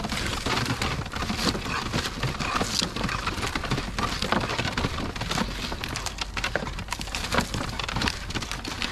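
Wooden cable drum turning by hand on a drum stand's steel spindle as 6 mm five-core SWA cable pays off it, making a steady stream of irregular clicks, knocks and rattles.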